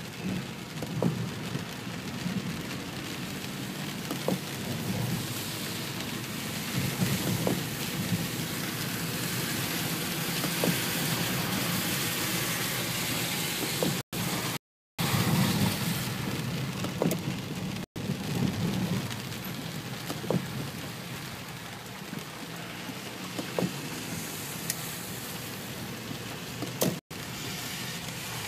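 Heavy rain pattering on a car's windshield and roof, heard from inside the car, with many scattered drop ticks over a steady hiss and a low rumble underneath. The sound cuts out briefly a few times, the longest gap about halfway through.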